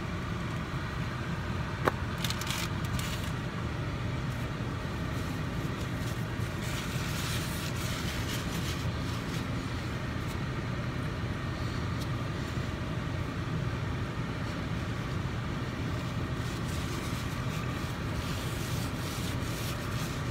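Steady low hum inside a car, with faint rustles and scrapes and one sharp click about two seconds in.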